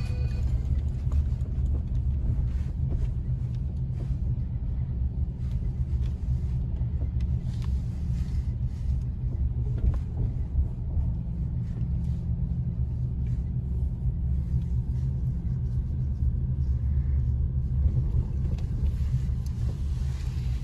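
Steady low rumble of a pickup truck's engine and tyres, heard from inside the cabin as it drives slowly.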